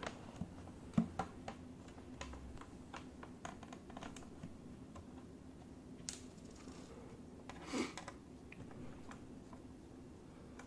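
Small screwdriver clicking and scraping as tiny screws are backed out of a laptop's display bezel: scattered light ticks, with two louder clicks about six and eight seconds in.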